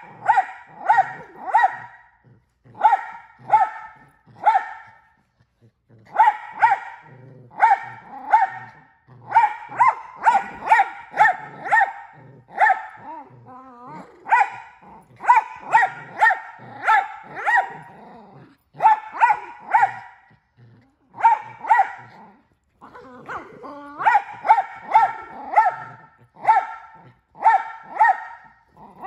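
Mini Australian Shepherd barking in quick runs of three to six barks, about two a second, with short breaks between runs. Low growling runs under the barks during tug-of-war play with a plush toy.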